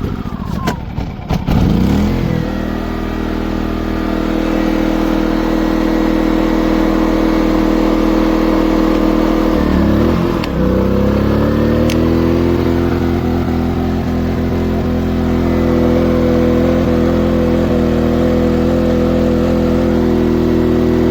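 ERAYAK portable inverter generator's small engine starting up and settling into a steady run. About ten seconds in its speed dips briefly, then rises and holds at a higher pitch. It is being restarted after an overload error and is running a little weird.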